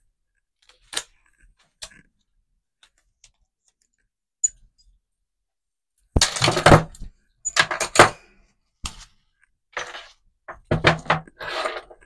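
Metal padlocks and their keys being set down on a hard desk one after another: a few faint clicks at first, then from about six seconds in a run of clunks and clinks with keys jangling.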